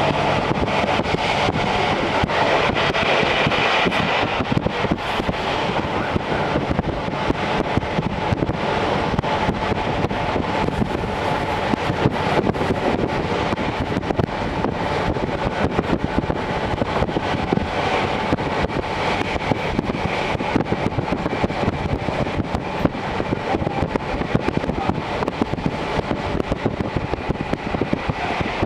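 Series 711 electric train running at speed, heard from inside the car through an open window: a steady rush of wind and wheel-on-rail noise, with frequent small clicks throughout.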